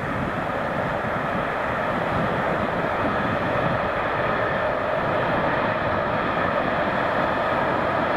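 Train crossing a high railway bridge, heard from afar as a steady rumble of running gear that does not change much.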